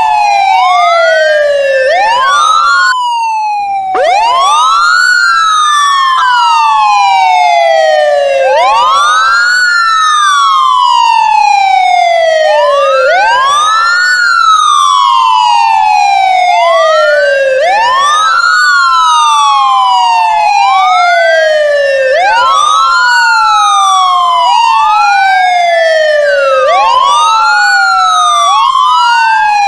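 Ambulance siren wailing: a quick rise and slow fall in pitch, repeating about every four and a half seconds, with two wails overlapping out of step. There is a brief drop-out about three seconds in.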